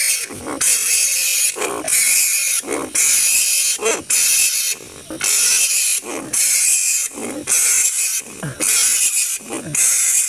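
Large flying foxes (kalong, giant fruit bats) screeching and squabbling: harsh, shrill calls in bursts about once a second, with short breaks of lower, sliding cries between them.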